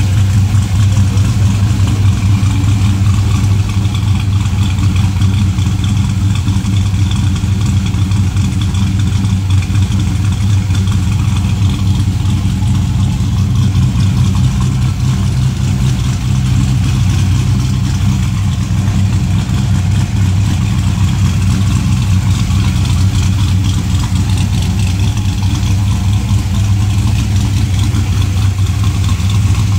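GM LS V8 engine swapped into a 1956 Chevrolet Bel Air, idling steadily.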